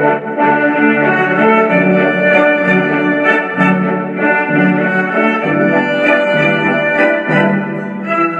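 Instrumental music on an organ-like electronic keyboard, a tune of held notes over a steady low part.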